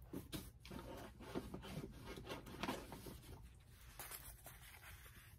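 Faint rustling and light clicks of yarn skeins being picked up and handled, in short irregular bursts.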